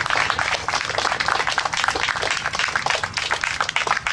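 A crowd applauding, many hands clapping at once at a steady level.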